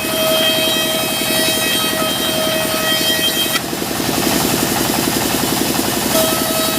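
Engine-driven sawmill running steadily with a fast low throb. A high whine over it cuts off a little past halfway and comes back near the end.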